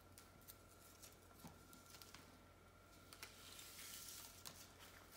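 Near silence with faint light taps, and about three and a half seconds in a soft rustle as a paper art print and a cardboard frame mat are picked up and handled.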